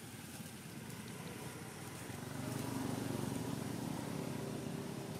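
Outdoor background noise: a low rumble that swells about two seconds in and slowly fades.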